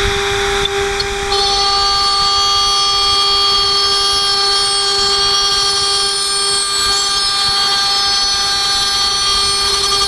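HSD 10 hp spindle on a CNC router milling 6061-T6 aluminum plate with a double-spiral end mill: a steady high whine that, about a second in, is joined by a louder ringing of several steady tones as the cutter works through the metal.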